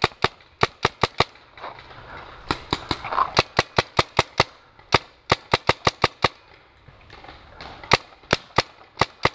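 Paintball marker firing in quick strings of sharp shots, several a second. After a pause of about a second and a half, four more shots come near the end.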